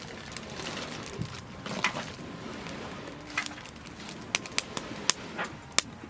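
Sharp, irregular clicks and knocks, several in quick succession near the end, over a faint steady background.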